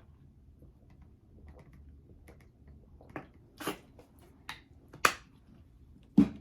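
Eating and food-handling sounds close to the microphone: about five short, crisp clicks and crackles in the second half, over a quiet room.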